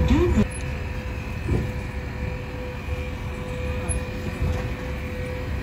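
Sightseeing road mini train running, a steady low rumble with a constant thin hum.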